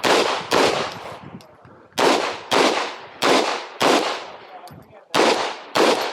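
9mm pistol fired in quick pairs: eight shots as four double taps, the two shots of each pair about half a second apart, with a short gap between pairs as the shooter moves to the next target. Each shot is sharp and loud with a brief echo.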